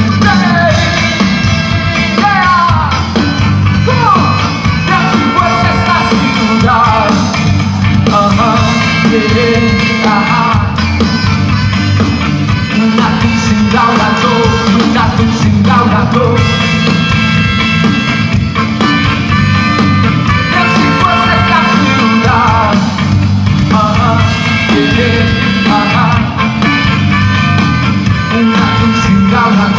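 A ska-rock band playing loud through a PA, with drum kit and bass underneath and a wavering lead melody line on top.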